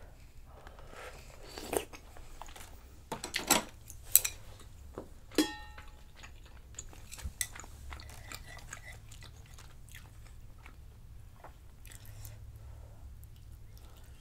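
Close-up eating sounds: sipping and chewing dumpling soup. A few sharp clicks of wooden chopsticks and spoon against the bowl come in the first half, one of them ringing briefly.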